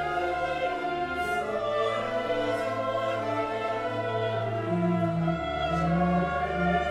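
Symphony orchestra and choir performing a slow requiem passage: held choral and string chords over low bass notes, which change about five seconds in.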